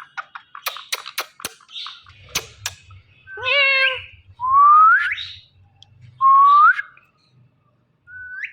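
Indian ringneck parrots calling: a few sharp clicks, then a mimicked "meow" about three and a half seconds in, followed by two rising whistles.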